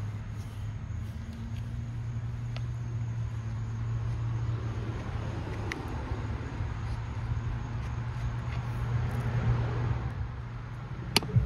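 Road traffic going by: a steady low rumble that swells slightly near the end, with a few faint clicks and one sharp click just before the end.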